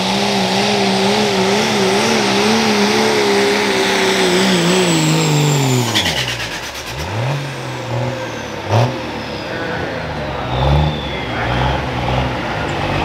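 Ford Super Duty diesel pickup pulling the sled at full throttle, its engine note steady but wavering as it hops down the track. About five seconds in the engine drops away as the pull ends, with a quick rattle of clicks. It then runs low with a couple of short throttle blips, while a high turbo whistle slides down in pitch.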